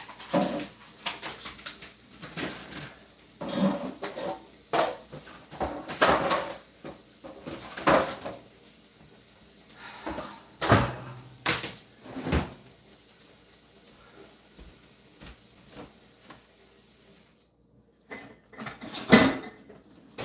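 Pots, pans and containers clattering and knocking as someone rummages through a lower kitchen cupboard, with cupboard doors bumping. Irregular clunks and clatters through the first dozen seconds, thinning out after that, then one loud clank near the end.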